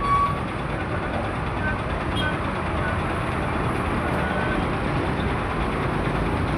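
Busy road traffic: a steady, dense rumble of engines and tyres, with a few short faint high beeps here and there.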